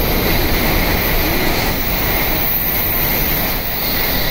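E7/W7 series Shinkansen passing straight through the station at about 260 km/h, close by: a loud, steady rush of air and wheel-on-rail noise.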